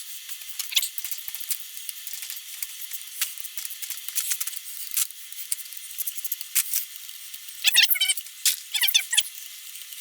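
Light metallic clicks and clinks of hand tools and engine parts being handled during an engine teardown, with two short bursts of squeaking about eight and nine seconds in.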